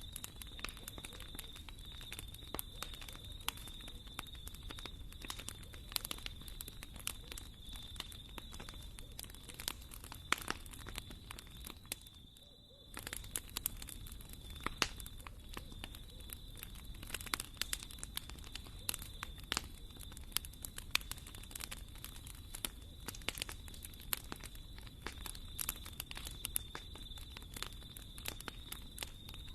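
Wood fire in a fireplace crackling, with irregular sharp pops and snaps over a low steady rumble and hiss. A faint steady high tone runs underneath. The sound briefly drops away about twelve seconds in, then resumes.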